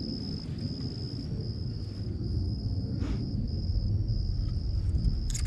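Insects trilling outdoors: a high, steady buzz broken by short gaps every second or so, over a steady low rumble. A brief rustle comes right at the end.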